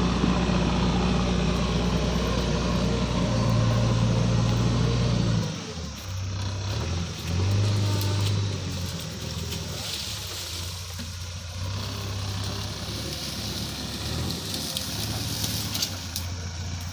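JCB 3DX backhoe loader's diesel engine running hard for about five seconds, then easing to a lower, wavering speed, with a few light knocks later on.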